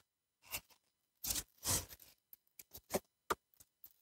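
Handling noise from hand work on coolant hoses and fittings: a few short clicks, scrapes and rustles at irregular intervals, with the sharpest click about three seconds in.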